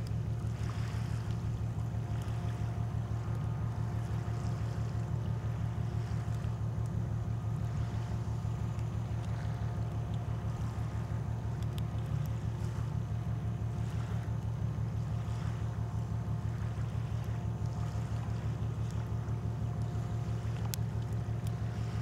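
Steady low engine drone of a large cargo ship, with a fast even throb and faint steady hum tones above it.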